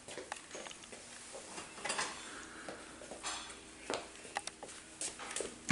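Scattered light knocks and clinks of small toy kitchenware being handled, coming irregularly, with a couple of brief rustles.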